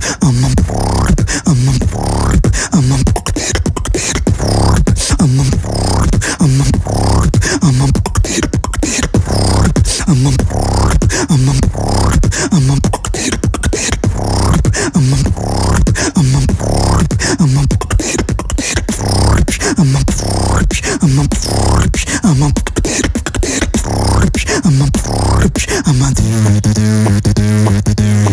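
Human beatboxing: a steady beat of vocal kick, snare and hi-hat sounds with short rising swoops about once a second. Near the end it changes to a held low buzzing bass tone.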